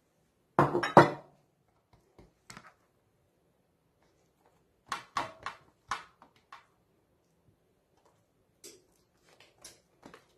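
Sharp clinks of a metal spoon against a ceramic plate and the plate set down on a stone countertop, in a few short clusters with quiet between; the loudest cluster comes just under a second in.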